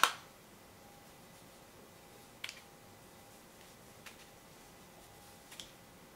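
Quiet room with a sharp click at the very start, then a few faint, short clicks and taps spaced about a second and a half apart as makeup is handled: a bronzer compact and brush.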